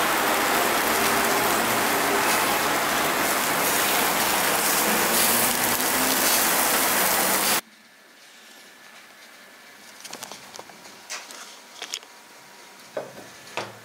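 Coot halves on skewers sizzling over a charcoal grill: a loud, steady hiss that cuts off abruptly about seven and a half seconds in. After that a quiet room with a few light clicks and taps.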